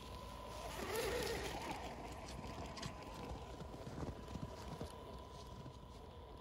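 Radio-controlled 4x4 crawler truck driving through deep snow: a steady high whine from its electric motor and gears, with the tyres crunching and churning the snow, loudest about a second in, and irregular small knocks.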